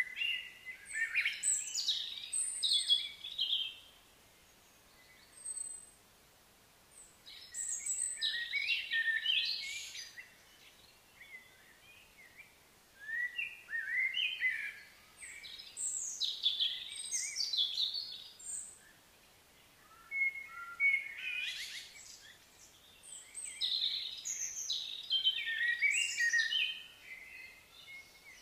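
Songbirds singing: rapid runs of chirps and whistled notes, coming in bouts of a few seconds with short pauses between.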